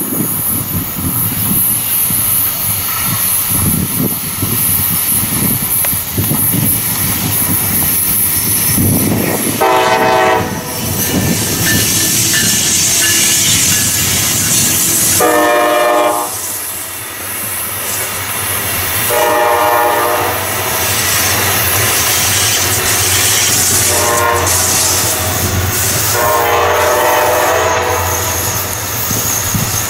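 Diesel locomotive horn sounding five blasts over the noise of a rolling train. The last four fall into a long, long, short, long pattern, the signal sounded when approaching a grade crossing.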